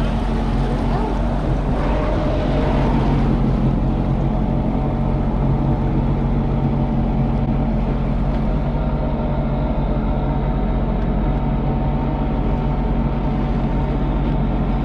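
Sea-Doo jet ski engine running at a steady cruising speed, a constant drone over the rush of water along the hull.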